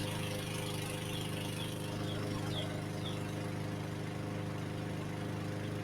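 Lawnmower engine running steadily at an even speed, measuring around 70 dB from 20 feet away.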